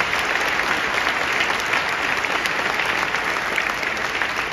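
Large stadium crowd applauding, thousands of hands clapping in a dense, steady wash.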